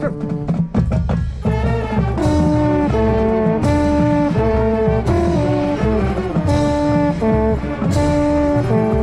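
Marching band brass playing a tune in held chords, heard close from within the horn line, after a short run of drum hits in the first second or so.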